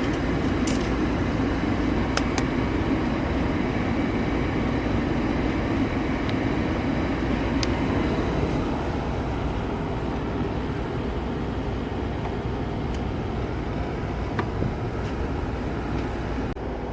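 Gas furnace running: burners firing and the blower moving air, a steady rumble and rush that gets a little quieter about halfway through. The temperature rise is too high and the technician puts it down to the blower running too slowly.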